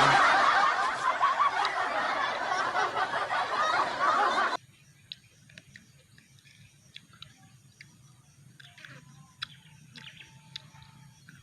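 Loud laughing for about four and a half seconds that cuts off abruptly, followed by faint scattered clicks and smacks of chewing santol fruit.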